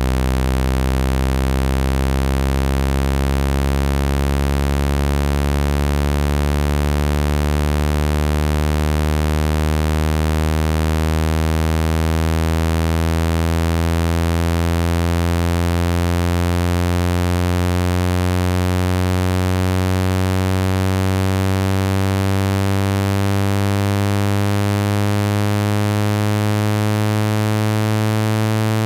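Synthesized speaker-cleaning tone of the kind played to shake water and dust out of a phone speaker: a low, buzzy tone with many overtones, gliding slowly upward in pitch at a steady loudness.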